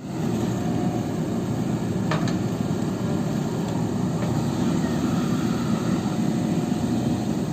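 JCB backhoe loader's diesel engine running steadily, with a light metallic clank about two seconds in.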